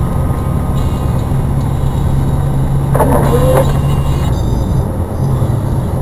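A car being driven, heard from inside the cabin: a steady engine hum with road noise. A brief higher-pitched sound that bends in pitch cuts in about three seconds in.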